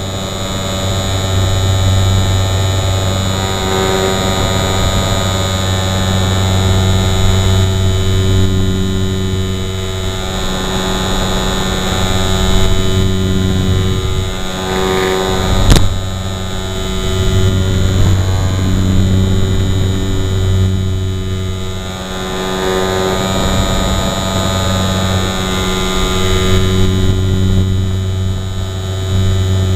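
RC model airplane's motor and propeller heard from a camera mounted on the plane in flight: a steady pitched drone with a constant high whine above it, its loudness swelling and easing a little as the throttle and airflow change. One sharp click about sixteen seconds in.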